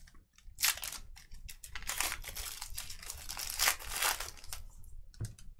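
Plastic trading-card packaging being torn open and crinkled. It comes in a few long bouts of crackling, then one short crinkle near the end.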